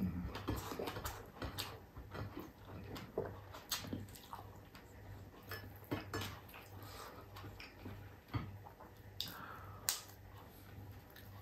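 Quiet eating sounds: scattered small clicks and crackles as crispy fried round scad (galunggong) is picked apart with the fingers over a plate, with a faint low hum underneath.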